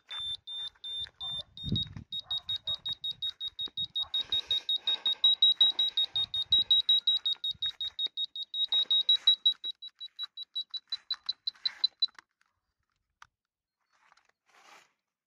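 Handheld pet tracker beeping in a high, even tone, about five quick beeps a second, as it searches for a missing cat. The beeping stops about twelve seconds in.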